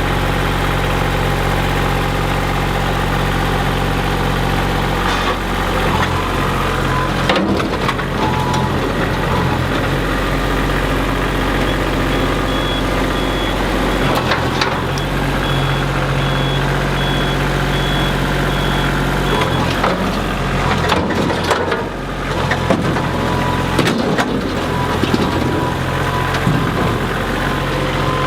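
A large engine running steadily, its note shifting a few times as the load changes. Several knocks or clanks come in the middle and later on.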